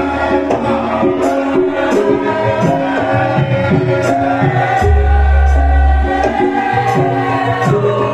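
Music with a singing voice over a steady percussion beat, and a deep low tone swelling about five seconds in.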